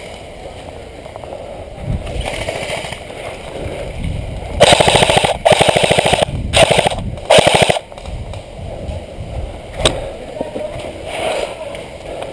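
Airsoft gun firing four short full-auto bursts in quick succession a little past a third of the way in, a rapid rattle of shots, followed a couple of seconds later by one sharp single crack.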